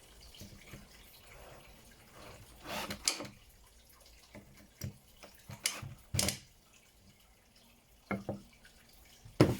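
Scattered clicks and taps as two self-tapping screws are driven in by hand, with the sharpest click near the end.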